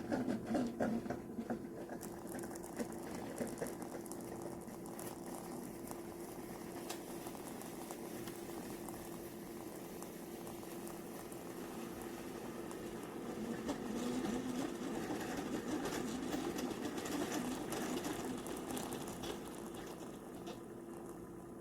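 Ninja Pod & Grounds single-serve coffee maker running: a steady hum under a rough noise, louder for several seconds past the middle, with a few clicks at the very start.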